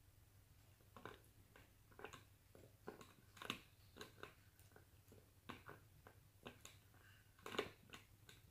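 Cat biting and chewing on a plastic spray bottle's trigger nozzle: faint, irregular clicks and crunches, one or two a second, with a louder bite near the end.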